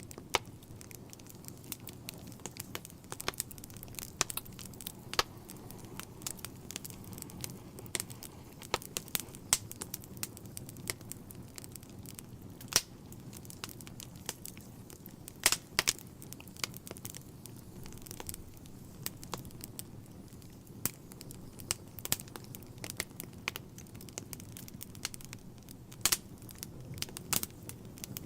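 Wood logs burning in a fireplace: a steady low rumble of the flames with irregular sharp crackles and pops several times a second, a few of them louder.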